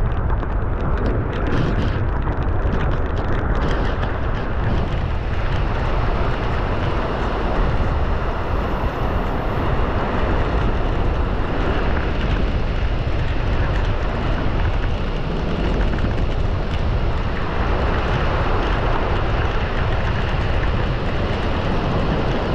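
Strong wind buffeting the microphone: a loud, steady rumbling roar with no let-up.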